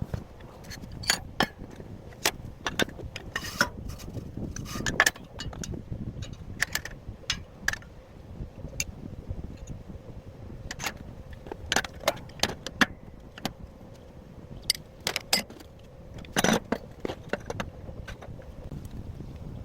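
Irregular metal clinks and knocks of steel parts and tools being handled, over a low steady rumble, with a louder knock about five seconds in and another near the end.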